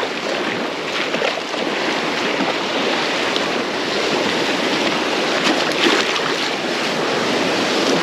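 Shallow surf washing and sloshing with wind on the microphone, a steady rush with a short louder splashy patch a little past the middle.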